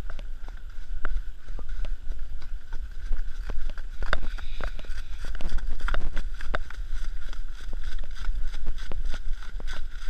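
Horse's hooves clopping along a leaf-covered dirt track, heard from the saddle as a string of irregular sharp knocks, under a steady low rumble of wind on the microphone.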